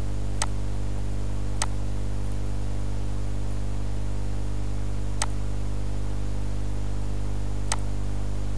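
Steady electrical mains hum in the microphone, with four sharp computer-mouse clicks spaced irregularly through it.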